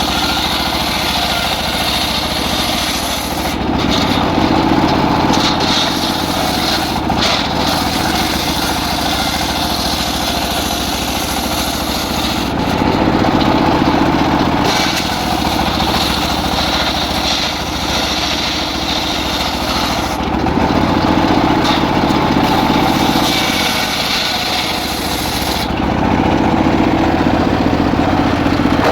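Circular saw running continuously while sawing teak, its tone shifting every several seconds as the blade takes and eases off each cut.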